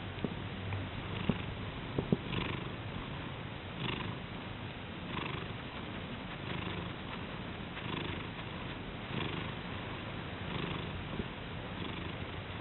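Domestic cat purring steadily, the purr swelling with each breath about every one and a half seconds. A few light clicks sound in the first two seconds.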